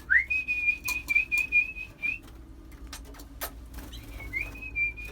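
Domestic canary singing: two clear whistled phrases, each a rising note that settles into a run of quickly repeated wavering syllables. A few sharp clicks fall between them.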